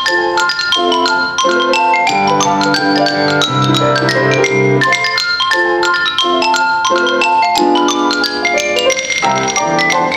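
Xylophone solo played with a quick stream of bright mallet notes, with grand-piano accompaniment sounding chords beneath.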